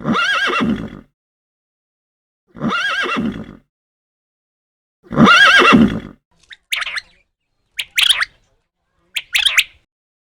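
A horse whinnying three times, the same wavering neigh each time, about two and a half seconds apart. Then comes a string of short, high calls from a bird.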